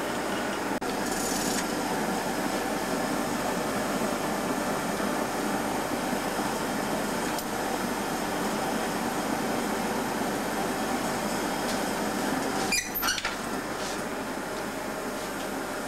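Steady roar of a glassmaker's furnace, with a short crackle near the end.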